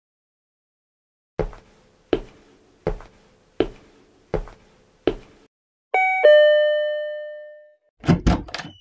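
Six slow, evenly spaced footsteps, then a two-tone doorbell chime: a short high note followed by a lower note that rings on. A quick burst of knocking comes near the end.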